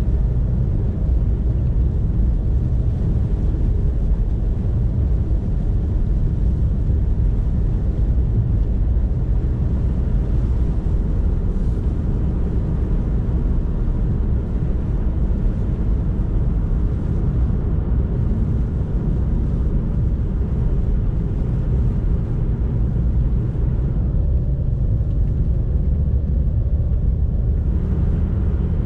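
Car driving on the road: a steady low rumble of engine and road noise, with the higher hiss easing off briefly near the end.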